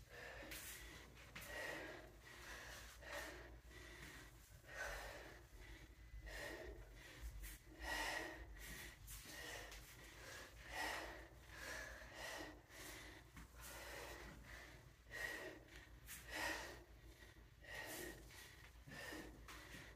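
A person breathing hard from the exertion of a dumbbell squat-and-deadlift set, a faint, even breath about once a second.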